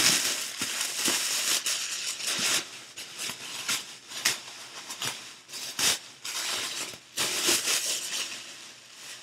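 Packing material crinkling and rustling as a parcel is unpacked by hand, with many sharp crackles.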